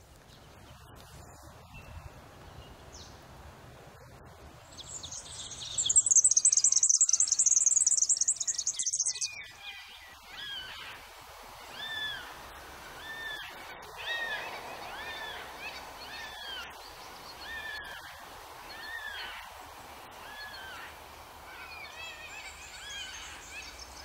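Birds calling: a loud, rapid high trill lasting about four seconds, then one bird repeating short rising-and-falling notes about once a second.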